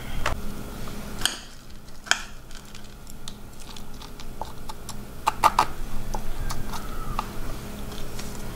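Scattered light clicks and taps of a metal spoon against ceramic plates and of food being laid onto rice paper on a wooden cutting board. A quick run of sharper clinks comes about five and a half seconds in. Under it runs a steady low hum.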